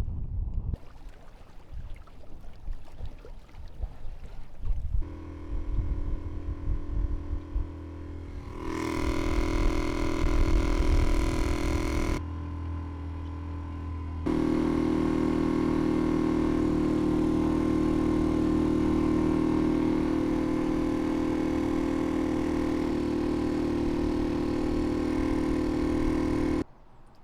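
Boat engine running at a steady pitch, heard in several stretches that cut abruptly one into the next, after a few seconds of wind and water noise.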